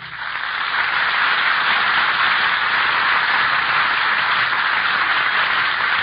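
Radio studio audience applauding, swelling over the first second and then holding steady.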